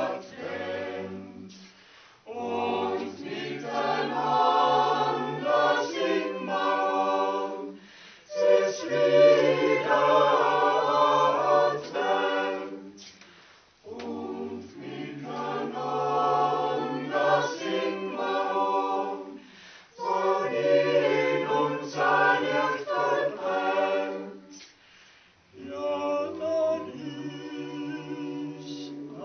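Mixed church choir singing a Christmas song a cappella, in phrases of about six seconds with brief pauses for breath between them.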